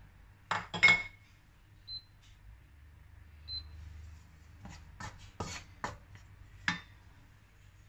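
Wooden spatula knocking and scraping against a wok while stirring minced garlic in oil: a sharp pair of knocks about a second in, then a cluster of knocks between five and seven seconds.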